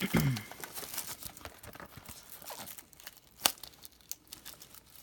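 Plastic wrapping crinkling and tearing as a sealed trading-card box is opened by hand, with small clicks and one sharp snap about three and a half seconds in.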